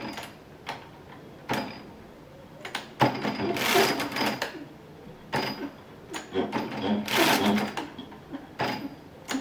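Mechanism of a 1918 Brunsviga pinwheel compound calculator turning through its cycles. Two bursts of metallic clattering, about three and a half seconds apart, each a turn of the machine that adds to the result register. Single sharp clicks fall between the bursts.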